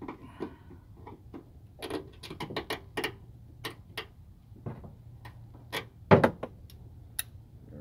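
Metal clicks and scrapes of a small pry tool working the retaining clip on a hood gas strut's ball-socket end, with one louder click about six seconds in.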